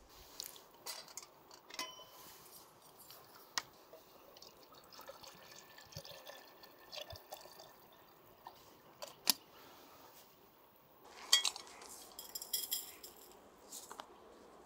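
Scattered light taps and clinks of a wooden spoon and fork on a wooden plate, then of small metal teaware, with a dense run of metallic clinks about two-thirds of the way through as a small metal teapot and its lid are handled.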